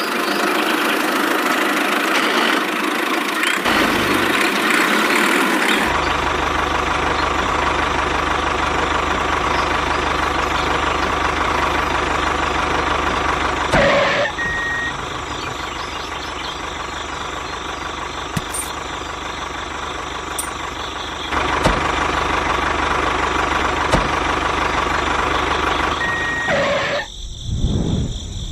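A motor running steadily, with two short high beeps about twelve seconds apart.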